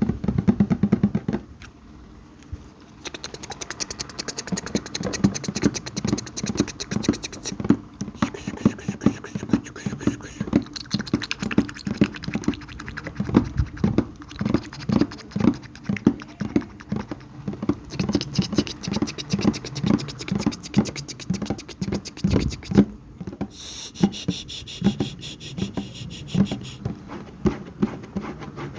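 Close-up ASMR mouth sounds: a rapid, uneven run of clicks and pops, several a second.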